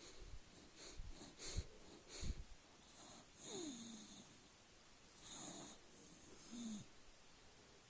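A sleeping dog snoring and wheezing: slow, noisy breaths with a hiss, two of them carrying a short whistling tone that drops in pitch. A few soft low thumps come in the first couple of seconds.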